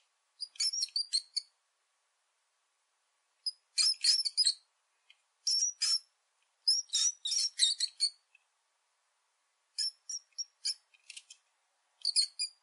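High-pitched chirping animal calls in about six bursts of rapid notes, with silence between the bursts.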